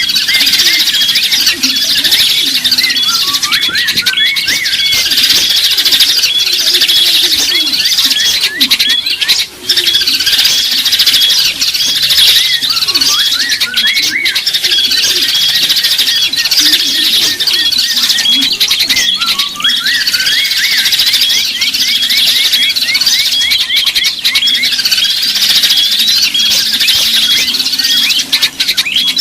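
A dense chorus of many small songbirds chirping and twittering at once, with short, overlapping high calls and trills that keep on without a break: a bird-lure (pikat) recording of small wild birds.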